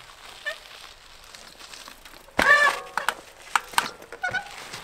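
Mountain bike landing a wheelie drop off a small stone ledge: a sudden thud about halfway through with a brief wavering squeal as the rear brake stops the bike quickly, then a few light clicks and knocks from the bike on the rocky trail.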